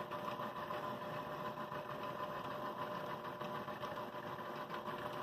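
Benchtop milling machine running at slow spindle speed, its four-flute end mill taking a light cut into a plastic model locomotive shell and making chips. The motor runs steadily with a faint steady tone.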